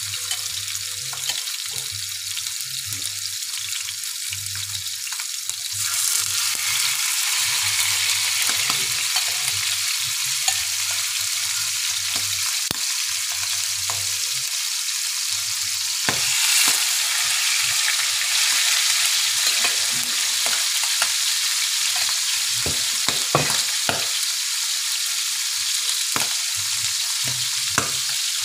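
Salmon steaks shallow-frying in hot oil in a nonstick pan: a steady sizzle that grows louder about six seconds in and again about sixteen seconds in as further steaks go into the pan. Sharp crackles and pops of spattering oil come more often in the last third.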